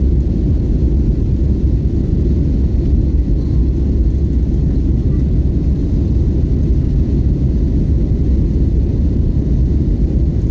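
Steady low-pitched cabin noise of an Airbus A320-family jet climbing after takeoff: the engines and the rush of air heard through the cabin at the window seat.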